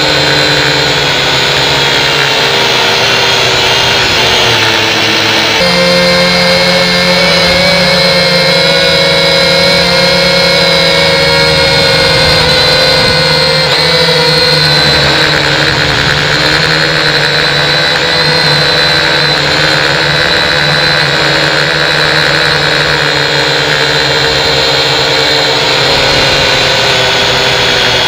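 Syma toy quadcopter's four small brushed motors and propellers buzzing in flight, heard up close through a camera mounted on the drone. It is a loud, steady whine of several tones that waver in pitch with throttle, with a clear shift in pitch about six seconds in.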